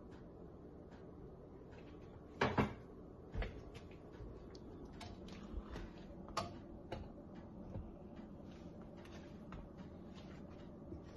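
Kitchen work sounds: scattered knocks and clicks of things being handled, the loudest a sharp double knock about two and a half seconds in, with smaller knocks around three and a half and six and a half seconds.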